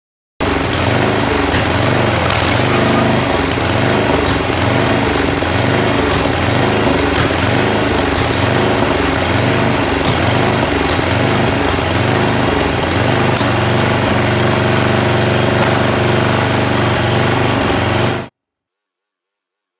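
Small gasoline engine of a hydraulic log splitter running, its note swelling and easing about once a second, then holding steadier for the last few seconds.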